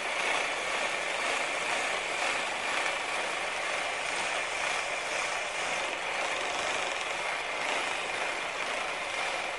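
Skew chisel planing a spindle of green wood smooth as it spins on a foot-powered treadle lathe: a steady cutting hiss along with the running lathe.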